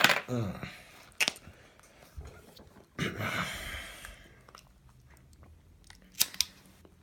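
Close-up handling of a tobacco pipe as the tobacco in the bowl is poked and packed down. A crunching rustle comes about three seconds in, with scattered sharp clicks including two near the end.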